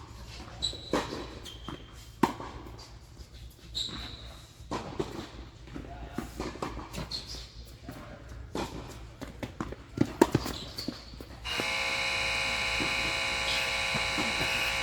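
Tennis rally: sharp racket hits and ball bounces at an uneven pace, with short high shoe squeaks on the court. About eleven seconds in, a loud, steady buzzing tone starts and holds for about four seconds, louder than the play.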